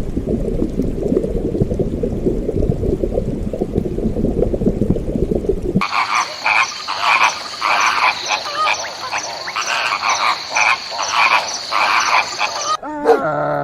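Animal calls in two clips. First a dense, low, rapid chorus, then about six seconds in a sudden switch to a busier chorus of higher, pulsed calls over a steady high tone.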